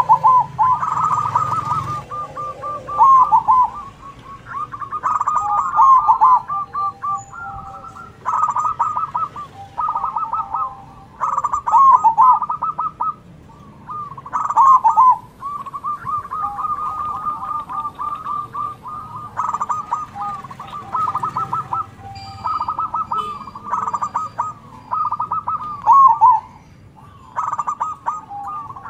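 Zebra doves (perkutut) singing their full song, rapid runs of short, bubbling coo notes repeated phrase after phrase, with birds answering each other and phrases overlapping.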